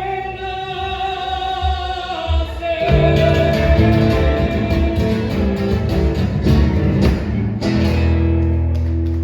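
Live song ending: a long held sung note, then strummed guitar and the band playing the closing bars, settling on a sustained final chord near the end.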